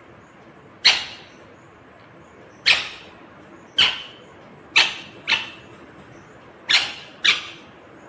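Indian ringneck parrot giving seven short, sharp, high-pitched calls, two of them in quick pairs near the middle and the end.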